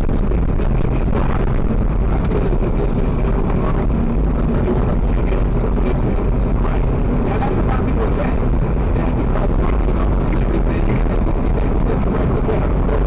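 Steady road and engine noise inside a moving car, with no sudden events.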